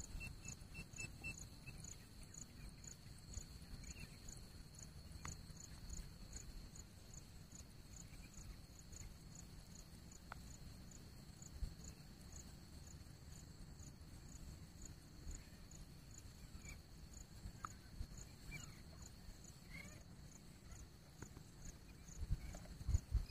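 Faint outdoor ambience of insects: a steady high-pitched hum with a regular ticking about two to three times a second, over a low rumble and a few soft clicks.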